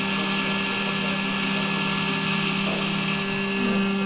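Spindle of a desktop CNC milling machine (model 7073) running steadily while its end mill cuts aluminium under flood coolant: a constant tone with a high cutting hiss over it.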